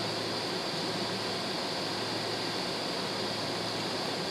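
Airliner cabin noise on the ground before take-off: the jet engines at idle and the cabin air, heard from inside the cabin as a steady, even rush with a constant low hum.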